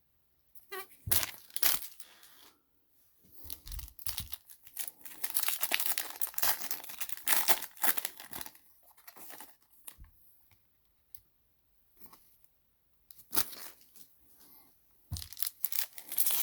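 Cardboard and plastic wrap on a mega box of trading cards being torn open, with crinkling as the packs are handled. The bursts of ripping and rustling come in irregular spurts, busiest in the middle and thinning to a few light clicks before picking up again near the end.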